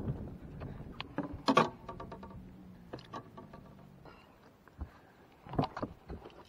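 Knocks and clicks of a largemouth bass landing and flopping on a carpeted boat deck and being handled as the hook is worked out of its mouth, loudest in a double knock about a second and a half in.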